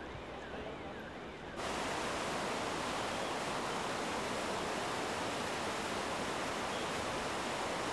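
Fast-flowing floodwater rushing, a loud, even noise that starts abruptly about a second and a half in. Before it there is softer water noise with a quick rising-and-falling warbling tone.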